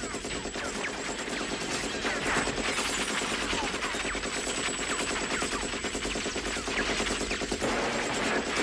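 Sustained automatic fire from a belt-fed M60 machine gun, a rapid unbroken stream of shots with short falling whines scattered through it, as a film soundtrack's gunfire effect.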